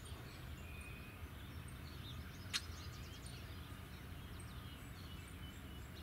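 Common grackle giving a single short, harsh, unmusical note about two and a half seconds in, over faint scattered chirps of small songbirds.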